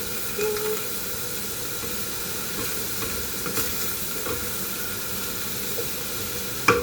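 Sliced bitter gourd sizzling steadily as it is sautéed in hot oil in a pan, with small clicks of a utensil stirring. A louder knock comes near the end.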